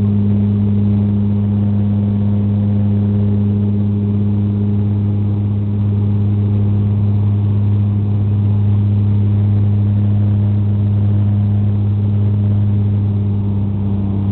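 Bombardier Q400 turboprop heard from inside the cabin during climb after takeoff: the steady drone of its PW150A engines and six-bladed propellers, a deep hum with a second tone an octave above it and a rush of air noise.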